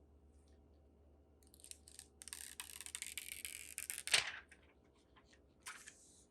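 Packaging or protective plastic being handled and torn: a couple of seconds of rustling and crackling that ends in a short, loud rip about four seconds in, then a brief rustle near the end.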